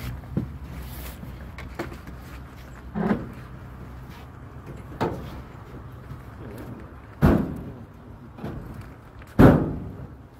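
Knocks and thumps from inside a minibus at its open side door as people climb in and load a blanket-wrapped dog. There are about five separate bumps, the two loudest near the end, over a low steady hum.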